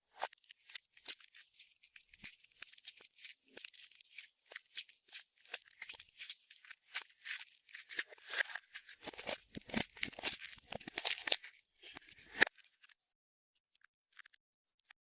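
Clear slime being squished and stretched by hand, giving a dense run of small crackling, clicking pops. The crackling grows louder toward the end, then stops, leaving a few faint clicks.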